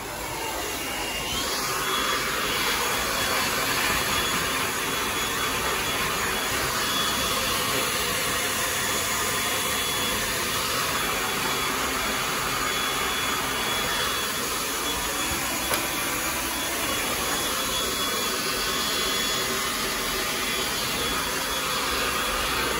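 Handheld hair dryer blowing on hair. It comes on right at the start and runs at a steady level, with a faint high whine over the airflow noise.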